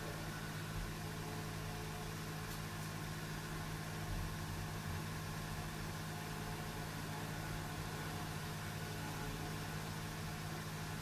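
Steady machine hum with an even background hiss, unchanging throughout.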